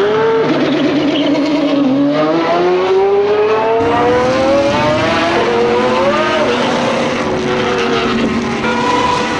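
Car engine sound effect revving hard: the pitch dips, climbs steadily for a few seconds, briefly rises and falls again, then holds high.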